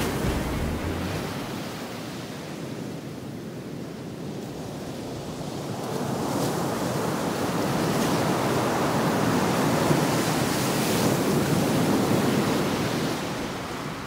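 Ocean surf with wind: a steady wash of waves that swells about six seconds in and eases off near the end.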